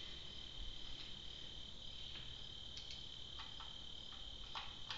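A screwdriver driving a self-tapping screw into a gas grill burner's sheet-metal plate, giving a few light clicks in the second half. Behind it runs a faint, steady high-pitched tone.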